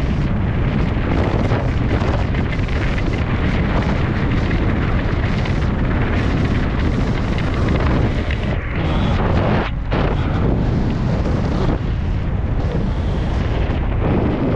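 Loud, steady wind buffeting and rumbling on the microphone, as from a camera moving fast through the air, with a couple of brief drops about two-thirds of the way through.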